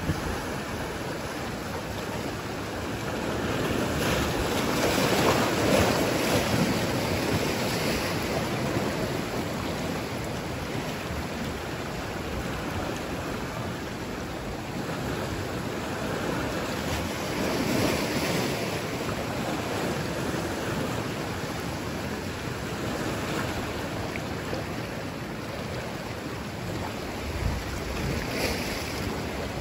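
Ocean surf washing over and around dark shoreline rocks: a steady wash that swells as each wave comes in, loudest about five seconds in and again around eighteen seconds.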